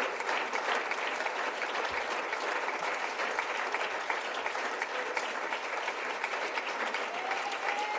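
Congregation applauding: many hands clapping at a steady level.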